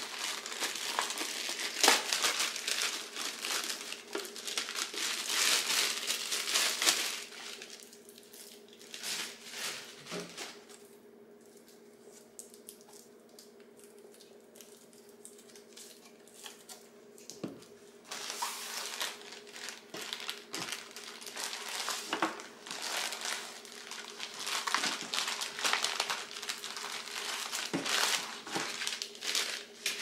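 Plastic packaging bag crinkling and rustling as hands unwrap a robot vacuum's charging dock, in long bursts with a quieter lull in the middle and a few light knocks.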